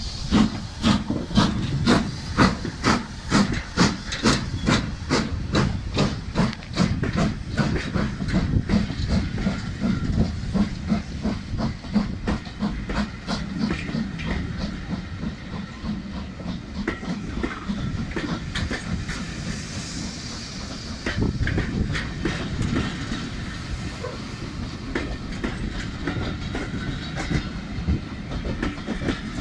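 LMS Black 5 two-cylinder 4-6-0 steam locomotive pulling away, its exhaust beating in a steady chuff of about two beats a second that fades as it draws off. The coaches then roll past with the clickety-clack of wheels over rail joints.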